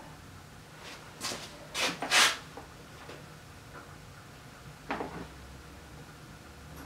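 A few short scraping clatters as parts on a Poulan Pro snowblower's engine are handled: three close together in the first couple of seconds and one more about five seconds in. The engine is not running.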